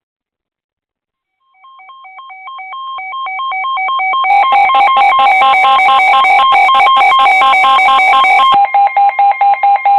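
Weather radio alert alarms going off together: rapid electronic beeping at about four beeps a second, starting about a second and a half in and growing steadily louder. A denser second layer of alarm sound joins over it and cuts off suddenly near the end, leaving the beeping. The alarm signals an incoming severe thunderstorm warning.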